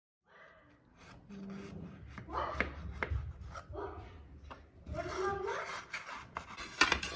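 A plastic knife scraping and clicking around the inside edge of an aluminium cake tin, loosening a baked cake from the sides. It starts about a second in and grows louder near the end.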